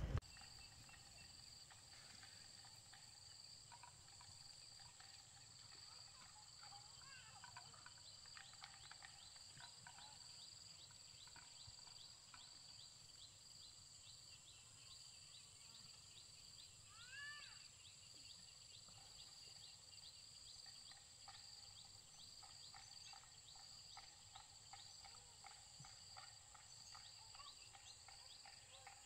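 Faint countryside ambience of insects: a steady high-pitched trill with rapid ticking calls over it, and one short chirp about seventeen seconds in.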